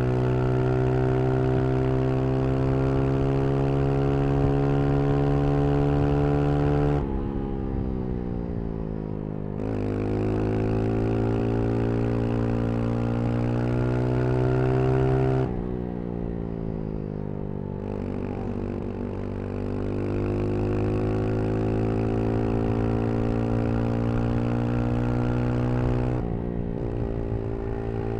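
Brixton Crossfire 125 XS single-cylinder engine under way, held at a steady high note, then falling away twice as the throttle is rolled off and climbing again on the throttle, with a short dip near the end.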